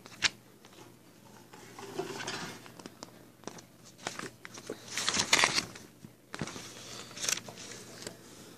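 Paper posters rustling and crinkling as they are handled, in scattered bursts, the loudest about five seconds in, with a click just after the start.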